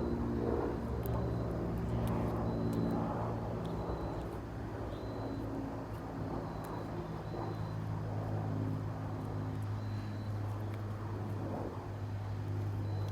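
A steady low motor hum runs underneath, with a few faint short high tones and light clicks.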